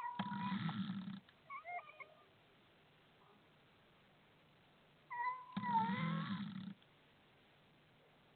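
Domestic cat making a strange, unusual meow twice, about five seconds apart. Each call is a low, rough buzz under a thin, steady high tone, and a few short chirps follow the first call.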